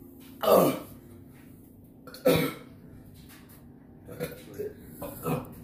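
A young man coughs hard twice, then gives a few softer coughs near the end. His throat is burning from extremely spicy fire noodles.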